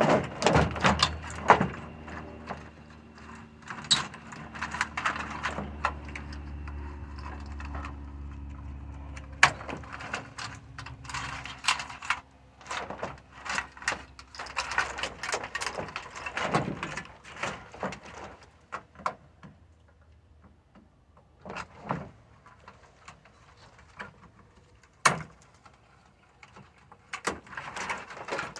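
Irregular clicks, knocks and clatter of small metal parts being handled and pried apart. A steady low hum runs underneath for the first dozen seconds, then stops.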